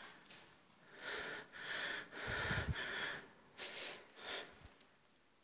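A person's breathy, airy sounds close to the phone microphone: a run of them lasting about two seconds, then two shorter ones, before it goes quiet.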